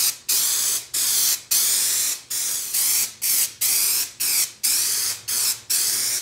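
Aerosol can of Hi-Strength 90 contact cement spraying onto foam in a quick run of short hissing bursts, about two a second.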